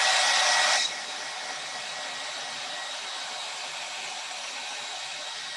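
Handheld hair dryer running, a steady rush of air with a faint whine, drying wet chalk paint. Less than a second in it drops to a quieter steady level and keeps running.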